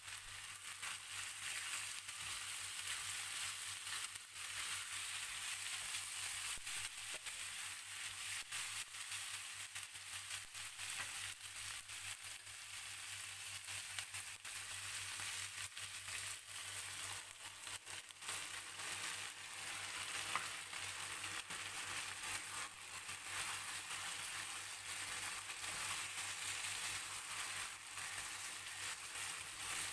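Chicken breast pieces and button mushrooms frying in oil in a pan: a steady sizzle with constant small crackles.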